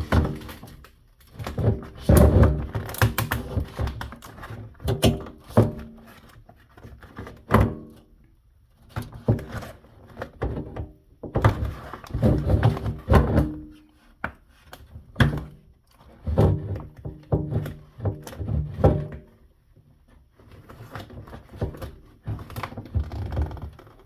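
Repeated knocks and thunks in irregular clusters from a skateboard deck being handled and pulled at while stubborn griptape is peeled off it.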